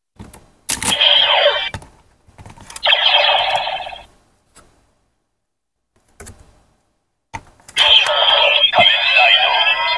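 Bootleg CSM Decadriver toy transformation belt: sharp plastic clicks as its side handles and buckle are worked, each followed by electronic sound effects from the belt's speaker. There is a short sweeping effect about a second in and a steady electronic tone around three seconds. A longer, louder transformation sound starts about seven and a half seconds in.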